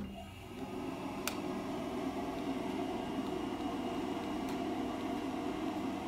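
Steady whooshing hum of a fan or blower, coming up about half a second in and then running evenly, with a faint high whine over it and a single sharp click about a second in.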